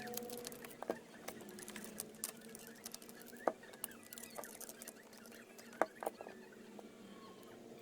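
Scattered light clicks and taps of small parts being handled, over a faint steady hum.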